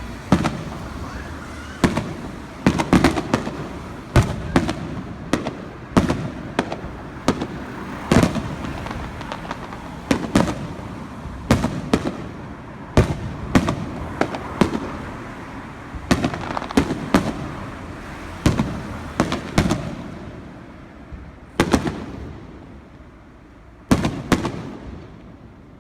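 Aerial firework shells bursting in quick succession, a sharp bang about every second, each trailing off in a rumble; the bangs thin out to a few near the end.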